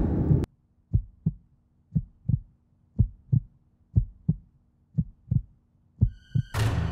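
Heartbeat sound effect: six slow double thumps, lub-dub, about one a second, over a faint low hum.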